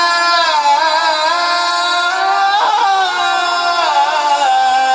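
Male Quran reciter (qari) chanting in melodic tajwid style, drawing out one long ornamented vowel whose pitch wavers and glides slowly.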